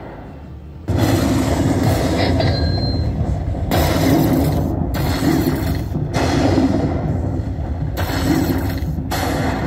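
Aristocrat Dollar Storm Emperor's Treasure slot machine playing its thunder-and-lightning win sound effects as the bonus coins are collected. A loud crash comes about a second in, then more crashes every two seconds or so over a steady low rumble.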